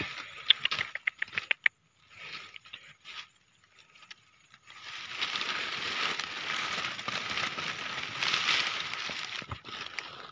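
Dry grass and leaves crackling and rustling as they are pushed aside by hand around a rat burrow. Sharp crackles in the first second or so, then steady rustling from about five seconds in.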